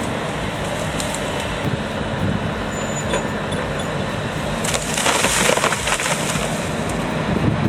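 Heavy machinery running steadily. About five seconds in comes a loud burst of wood cracking and crushing that lasts roughly a second.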